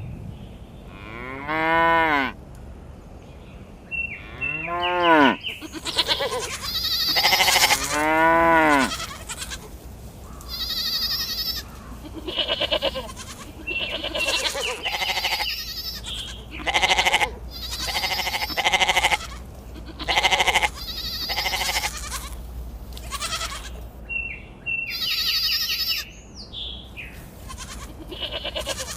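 Sheep bleating over and over: a long run of calls about a second each, the first few rising and falling in pitch, the rest with a fast wavering quaver, some overlapping as if from several animals.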